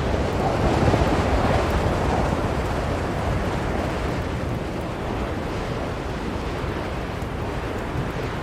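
Blizzard wind blowing hard as a steady rushing noise, swelling a little about a second in and then easing to an even blow.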